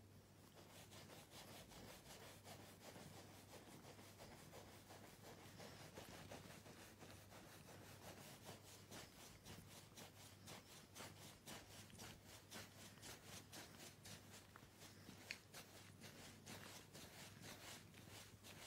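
A hand rubbing a long-haired cat's belly fur: faint, quick, even swishing strokes, with one small sharp click about fifteen seconds in.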